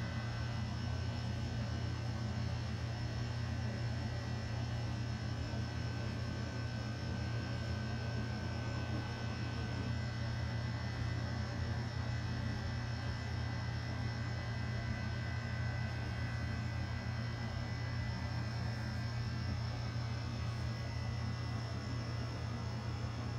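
A steady low electrical hum with a few faint, thin high tones above it, unchanging throughout.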